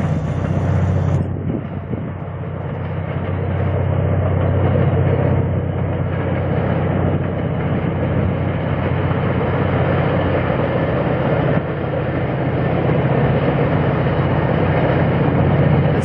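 MBTA commuter rail train passing: the steady low hum of its diesel locomotive over the rumble of the coaches on the rails.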